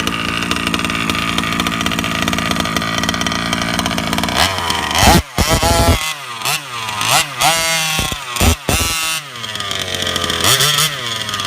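Freshly rebuilt G340 two-stroke engine of an HPI Baja 5B petrol RC car, running steadily at first, then revved in a quick series of throttle blips with the pitch rising and falling about halfway through, before settling back to a steady run with one short blip near the end.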